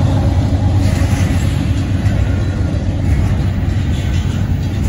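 Double-stack intermodal container train rolling past at a grade crossing: a steady, loud rumble of wheels on rail as the container well cars go by.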